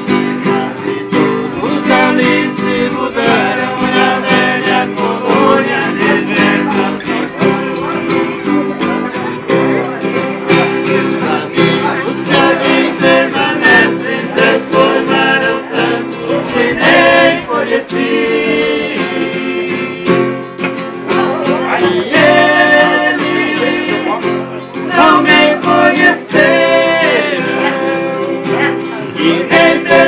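Two acoustic guitars strummed and picked while men sing together in a Brazilian sertanejo (country) duet.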